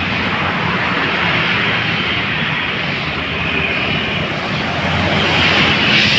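Steady engine roar with a loud rushing noise, swelling slightly near the end.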